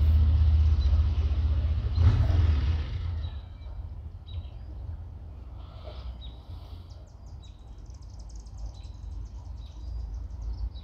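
Motorcycle engine rumbling as it passes on the street and dies away over the first three seconds. Then birds chirp in short, separate calls, with a faint rapid high chirring in the second half.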